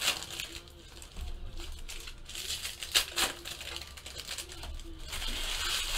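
Foil wrapper of a baseball card pack crinkling and tearing as it is pulled open by hand, with sharp crackles about one and three seconds in and a denser rustle near the end.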